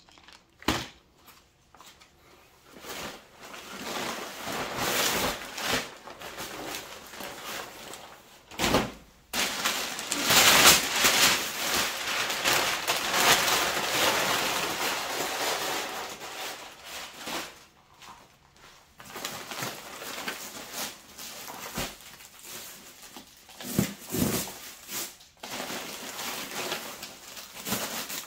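Rustling and crinkling of a nylon wing bag and the packed wing's fabric and wrapping being handled, in irregular bursts, loudest in a long stretch about a third of the way in, with a few short knocks.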